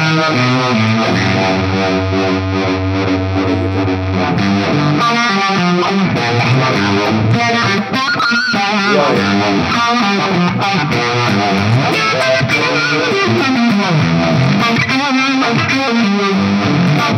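Distorted electric guitar playing a lead through a multi-effects pedalboard. It begins with held notes, then moves into faster runs with bends.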